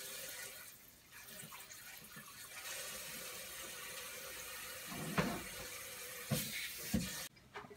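Kitchen sink faucet running as a dishwasher water inlet valve part is rinsed under it to flush out sediment, with a few short knocks in the later part. The water shuts off suddenly near the end.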